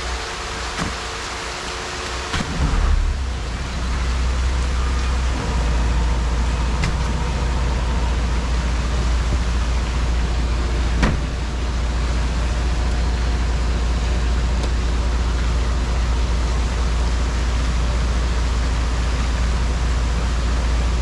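Machinery running with a steady low rumble that comes on about two and a half seconds in and grows louder a few seconds later, with a single sharp click about eleven seconds in.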